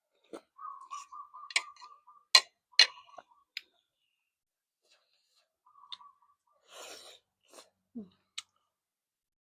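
Eating sounds from a bowl of boat noodles: chewing and slurping, broken by a few sharp clicks and clacks of utensils, the loudest two close together about two and a half seconds in.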